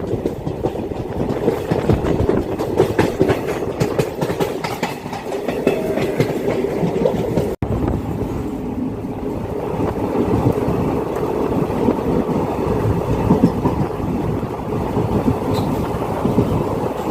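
Wheels and bogies of an ICF passenger coach running at speed on the track, heard from on board: a steady rumble with rattling clicks from the wheels on the rails.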